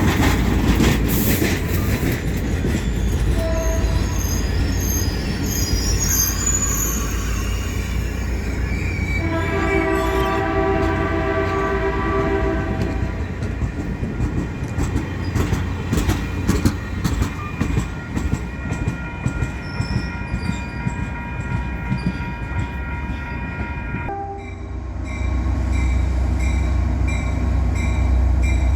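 Caltrain passenger train running past with a steady low rumble and the clatter of wheels over rail joints, and a high wheel squeal a few seconds in. Its horn sounds about ten seconds in for some three seconds, and again for the last four seconds.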